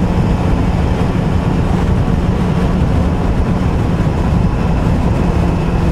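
Triumph Sprint ST 1050's three-cylinder engine running at a steady motorway cruise, with wind rush over a helmet-mounted microphone.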